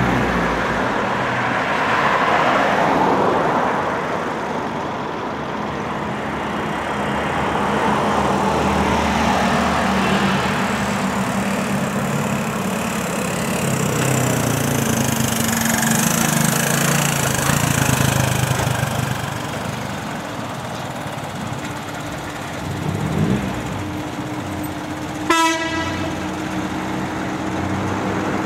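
Motorcycle engine running, its low tone stepping up and down as engine speed changes, over a steady rush of noise, with a single sharp click about 25 seconds in.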